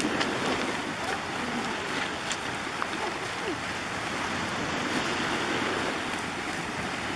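Small sea waves washing against boulders and a rocky shore: a steady rush of surf.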